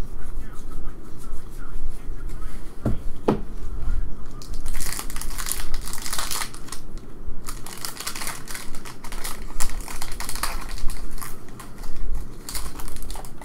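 Close-up crinkling and rustling of thin plastic wrapping as a trading card is handled and unwrapped, in irregular crackly spells through the latter two thirds. Two soft knocks come about three seconds in.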